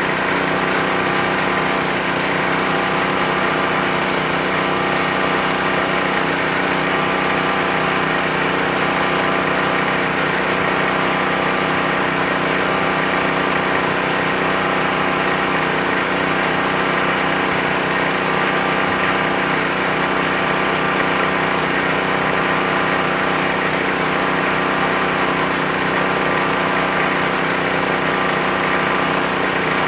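Small engine of a bore-well drilling machine running steadily at an even speed.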